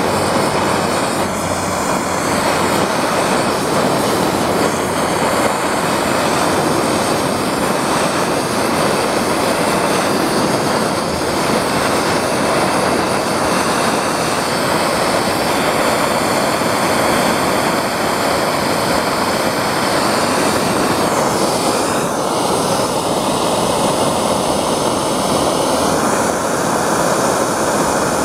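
Handheld gas torch flame burning with a steady rush, heating a steel fuel tank so that solder will flow over small patches covering pinhole leaks.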